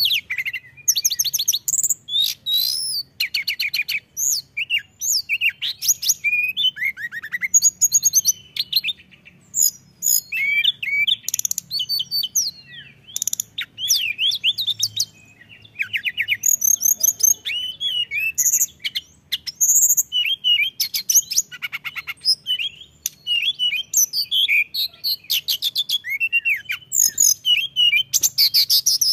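Hill blue flycatcher (tledekan gunung) in full song: a rapid, varied run of high whistled phrases and fast trills, with only short breaks.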